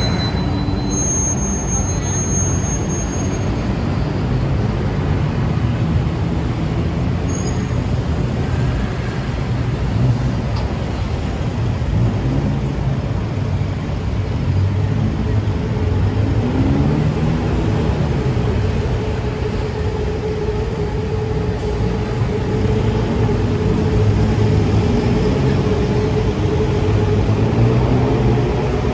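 Busy city road traffic: buses, cars and motorbikes running past in a steady mix of engine and tyre noise, with engine pitch rising and falling now and then as vehicles go by. A steady hum joins in about two-thirds of the way through.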